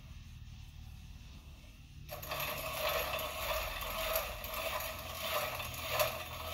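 A steel piston ring end being ground on a piston ring filer: a steady rasping grind that starts abruptly about two seconds in and cuts off at the end, opening the top ring's end gap a little at a time toward 0.024 in.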